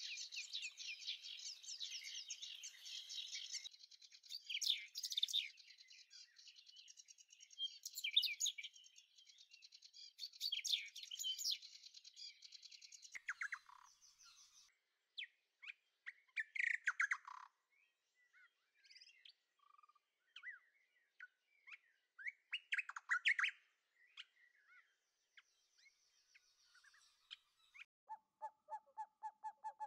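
Birds chirping: a dense chorus of high chirps for about the first half, thinning to scattered single calls. Near the end comes a quick run of lower, evenly repeated notes.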